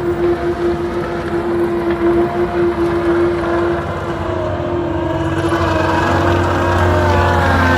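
John Deere 331G compact track loader running, its Yanmar four-cylinder turbo diesel carrying a steady whine. From about five seconds in, the engine note rises and grows fuller as it revs up.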